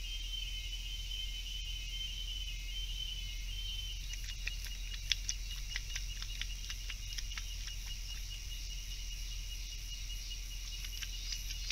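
South American coati lapping water from a shallow basin: a run of quick, short wet clicks from about four seconds in and again near the end, over a steady high chorus of insects.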